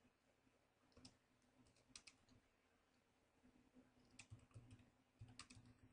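Faint keystrokes on a computer keyboard while a command is typed: a few scattered taps about one and two seconds in, then a quicker run of taps near the end.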